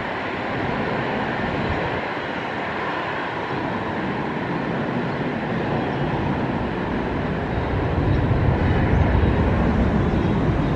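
Twin IAE V2500 turbofans of an Airbus A321-231 at takeoff thrust on the takeoff roll: a steady jet noise, with a deep rumble growing louder about eight seconds in.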